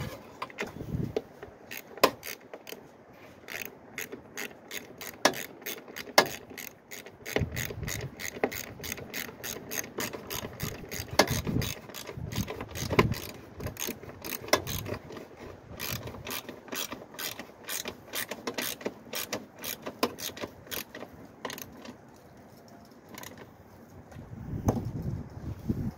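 Hand socket ratchet clicking in quick repeated runs as a bolt is turned.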